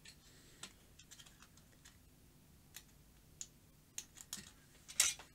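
Scattered small clicks and taps from a printed circuit board being handled, with a louder click near the end.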